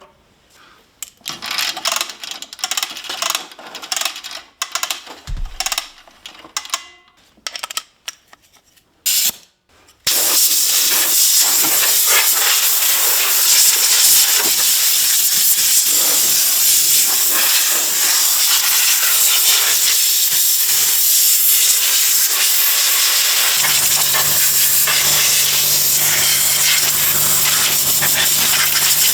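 Compressed air from a blow gun hissing steadily as it blows dust and debris out of an old bandsaw, starting about a third of the way in after some irregular knocks and clatter. A low steady hum joins the hiss near the end.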